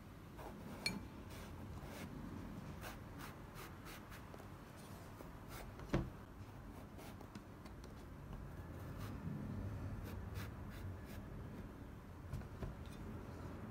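Kitchen knife cutting and scoring the thick rind of a banpeiyu (giant pomelo), a scratchy, crackly sawing with many small ticks, and a sharp knock about six seconds in.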